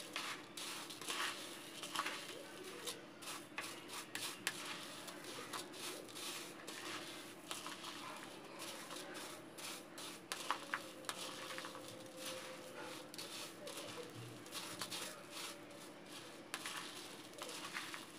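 Dry puffed rice rustling and crackling as it is stirred with a plastic spatula in a plastic bowl: a continuous run of soft, irregular scrapes and light clicks.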